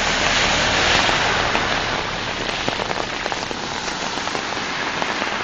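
Steady rushing of heavy muddy floodwater flowing over a flooded road, a little louder in the first second or so.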